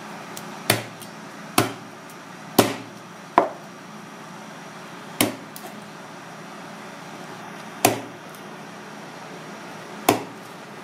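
Chef's knife cutting through sea snake meat and knocking on a plastic cutting board: seven sharp, separate chops at uneven intervals over a steady hum.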